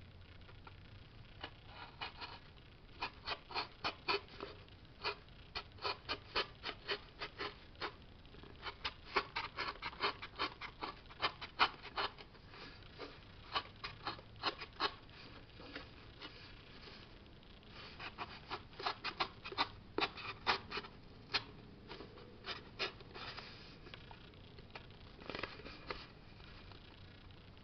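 Craft knife (X-Acto) blade cutting and scratching through a cardboard sleeve on a tin can: irregular runs of short sharp clicks, several a second, with a couple of short pauses.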